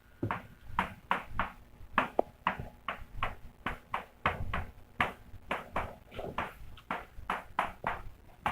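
Writing strokes on a writing surface as an equation is written out: a steady series of short, sharp taps and scratches, about two to three a second.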